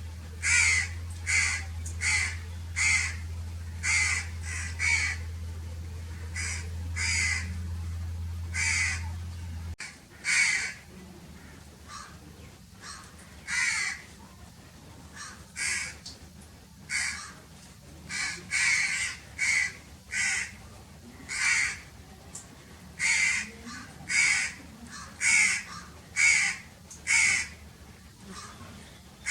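Crows cawing over and over, separate caws coming about once a second and sometimes in quick pairs.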